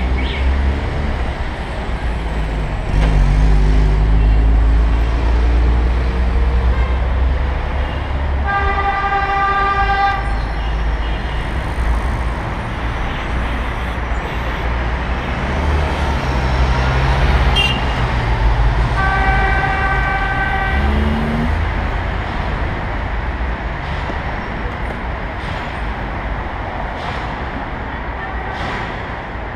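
Road traffic heard from a moving bicycle, with a heavy low rumble of wind on the microphone. A vehicle horn sounds twice, each blast about a second and a half long, about ten seconds apart.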